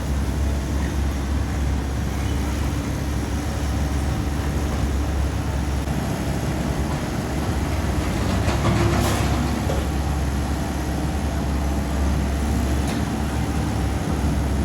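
Excavator's diesel engine running steadily with a deep rumble, with a louder burst of noise about eight to ten seconds in.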